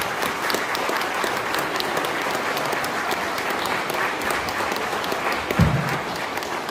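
A crowd of guests applauding steadily, a dense patter of many hands clapping. A brief low thump stands out near the end.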